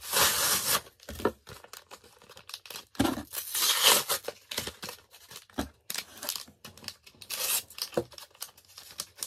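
Cardboard and plastic packaging of a Pokémon card blister pack being torn and pulled open by hand: three main bursts of tearing and crinkling, about a second apart at first and then at three-second gaps, with small clicks and rustles between.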